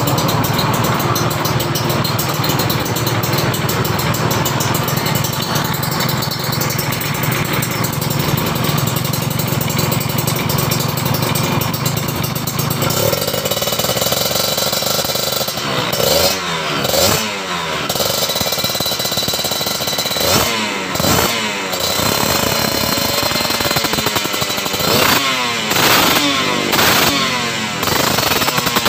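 Kawasaki Ninja 150 RR's two-stroke single-cylinder engine running, just started. It idles steadily for the first half, then is revved in short blips, several quick rises and falls in pitch toward the end.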